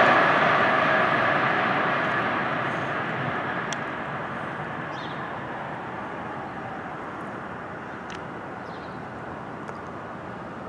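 Passenger train pulling away into a tunnel, its rumble fading steadily as it recedes.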